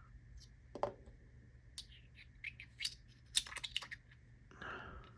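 Small titanium fidget being handled and taken apart: scattered light metallic clicks and taps, with a quick cluster of clicks around the middle and a brief soft rustle near the end.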